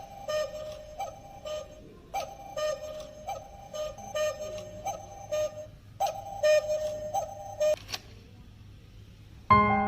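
Cuckoo clock's cuckoo call: a falling two-note "cu-ckoo" repeated about twice a second in three runs with short breaks, stopping about eight seconds in. Piano music starts near the end.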